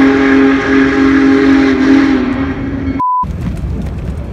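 Train horn sounding one long chord of several steady tones, cutting off about two and a half seconds in. A short, high, pure beep follows half a second later, then a low noisy rumble.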